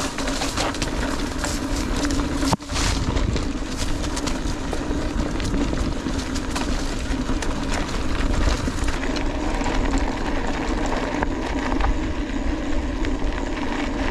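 Scott Genius mountain bike rolling fast over a dirt trail: the tyres give a steady hum and the bike rattles and knocks over the bumps, with a sharper jolt about two and a half seconds in, all under rushing wind on the microphone.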